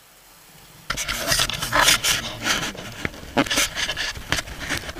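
Handling noise from a small action camera in its case: irregular rubbing and scraping as it is grabbed and turned around, starting about a second in after a quiet moment.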